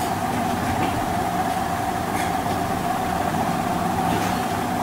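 Steady machine-like hum with a constant high whine, unchanging throughout, with a couple of faint taps.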